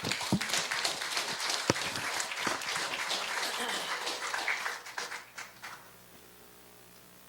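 Congregation applauding after a song. The clapping is dense and then thins out and stops about six seconds in.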